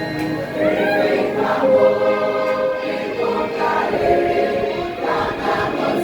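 Church choir singing a hymn over a recorded orchestral backing track, the voices coming in about half a second in.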